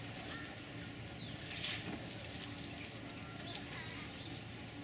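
Outdoor ambience with scattered bird chirps over a steady low hum, and one short rush of noise about a second and a half in.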